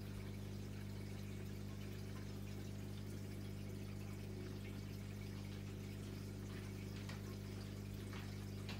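Aquarium pump running with a steady low hum, with faint trickling water.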